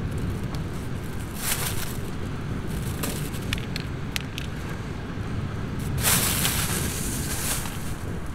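Clear plastic bag crinkling as a hand works in it, in two spells, with a few sharp knife taps on a wooden cutting board between them as a green bell pepper is cut. A steady low rumble runs underneath.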